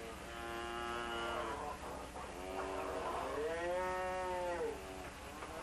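Beef cattle mooing: two long moos, the second longer, its pitch rising and then falling.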